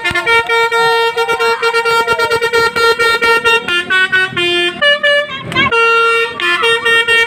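Telolet bus air horn playing a fast melody of short, repeated blasts that step between several pitches, loud and continuous with brief breaks.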